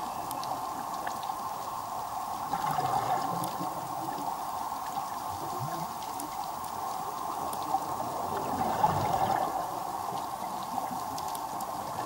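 Underwater ambience from a scuba dive: a steady watery hiss with faint scattered clicks. The bubbling of a diver's exhaled breath swells up twice, a few seconds in and again about three quarters of the way through.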